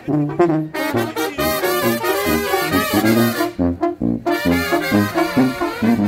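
Oaxacan brass band (banda de viento) playing on the march: trumpets, trombones and clarinets in short punchy phrases over a sousaphone bass line. The upper horns drop out briefly near the middle while the bass keeps going.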